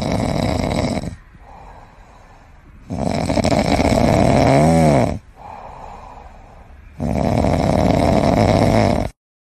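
A sleeping golden retriever snoring: three loud snores about three to four seconds apart, with quieter breaths between them. The sound cuts off shortly before the end.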